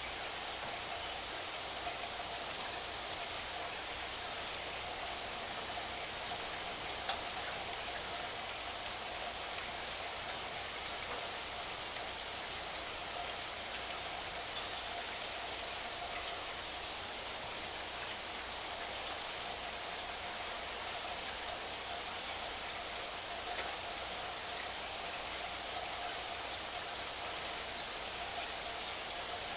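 Steady rain falling, an even hiss of drops with a couple of single louder ticks.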